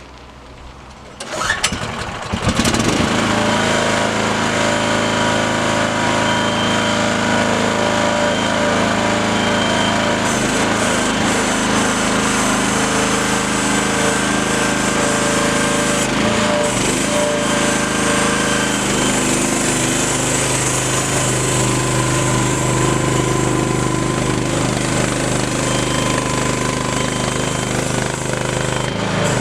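Miva VA08 mini excavator's engine starting a second or two in, then running steadily, with a slight change in its pitch about two-thirds of the way through.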